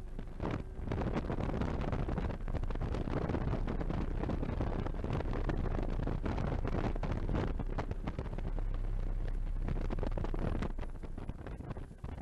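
Porsche 992 GT3's 4.0-litre flat-six at full throttle, heard from inside the cabin with heavy wind noise, with a short break near the start for an upshift into sixth. About ten seconds in the engine note falls away as the car brakes hard and downshifts for a slow corner.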